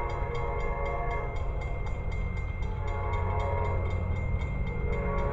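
Distant train's air horn sounding long blasts as the train approaches, over a steady low rumble: one blast fades out about a second in, another sounds from about three to four seconds in, and a third begins at the very end. A fast high ticking, about three a second, runs underneath.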